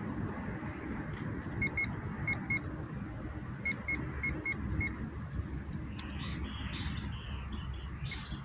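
Minelab Go-Find metal detector giving short paired beeps, several pairs in a row between about a second and a half and five seconds in, as its coil is swept over a dug hole: the signal of a metal target still in the ground. A steady low rumble runs underneath.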